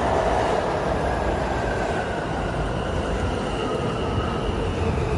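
R160 New York subway train on the L line running into the station and slowing: steady wheel and track rumble with a faint whine that falls in pitch.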